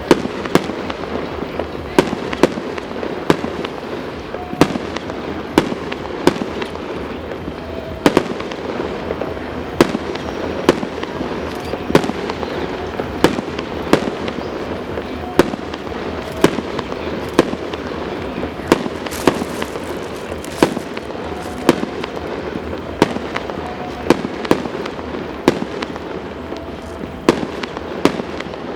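Fireworks display going off continuously: a dense crackle with sharp bangs about once every second or so.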